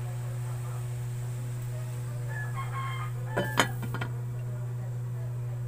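A rooster crows in the background about two and a half seconds in. A glass pot lid then clinks a few times onto the rim of the cooking pot about three and a half seconds in, which is the loudest sound. A steady low hum runs underneath.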